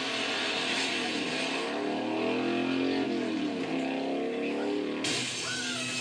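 Car engines revving, several engine notes rising and falling and crossing one another, as on a film or TV soundtrack. The sound changes abruptly about five seconds in.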